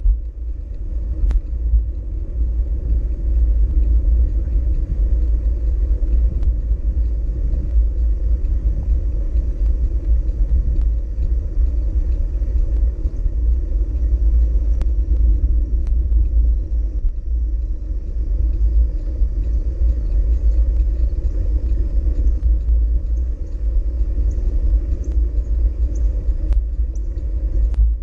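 Wind buffeting a GoPro Hero4 Session's microphone on a moving bicycle: a steady, loud low rumble with road noise underneath, and a few faint high ticks near the end.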